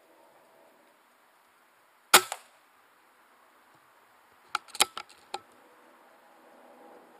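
Air rifle shot: one sharp crack about two seconds in, followed a fraction of a second later by a quieter knock. About two seconds after the shot comes a quick run of four or five sharp clicks.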